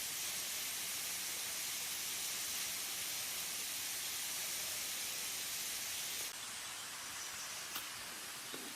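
Steady high-pitched hiss of tropical forest ambience that drops abruptly to a quieter level about six seconds in, with a faint click or two afterwards.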